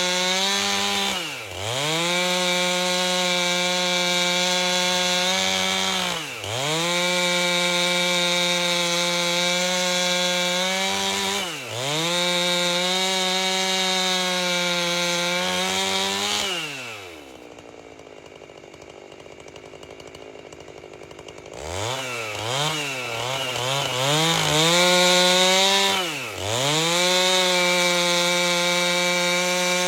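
Two-stroke chainsaw with a 30-inch bar ripping an albasia log lengthwise at full throttle. The engine pitch dips briefly and recovers every five seconds or so; past the middle it drops to a low idle for about five seconds, then revs back up with a wavering pitch before settling into the cut again.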